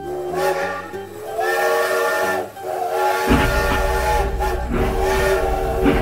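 Recorded steam-locomotive whistle sound effect of a kiddie ride train, sounding in several long chord-like blasts of about a second each. A low rumble joins about halfway through.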